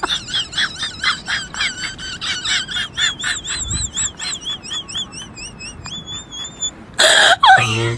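A rapid run of high-pitched, birdlike chirps and warbling whistles, several notes a second, which stops about seven seconds in. A loud, harsh burst of sound follows near the end.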